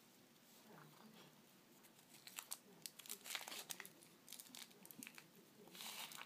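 Thin foil wrapper being peeled off a chocolate surprise egg: irregular crinkling and tearing that starts about two seconds in and gets denser toward the end.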